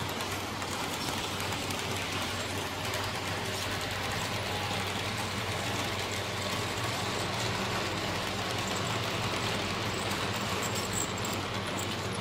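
Electric HO-scale model trains running on a layout's metal track, among them a Märklin Big Boy 37990: a steady rumble of wheels with a low motor hum underneath.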